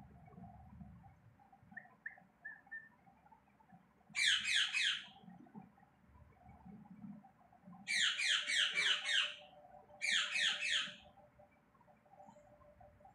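Indian ringneck parakeet giving three bursts of rapid, harsh repeated calls, each about a second long, the first about four seconds in and the other two close together near the end.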